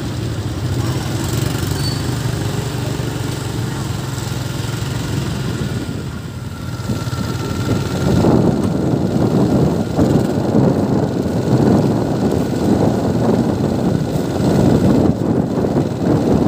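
A motorbike engine running while riding along a street, with road noise. About eight seconds in, rough wind rushing over the microphone gets louder as the ride speeds up.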